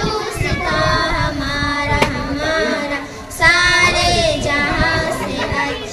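A child singing, holding long notes, with a short break about three seconds in.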